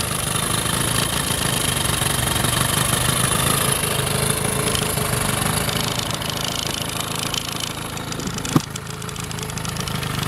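1996 Evinrude 9.9 hp two-stroke outboard motor running steadily at idle, with a single sharp click about eight and a half seconds in.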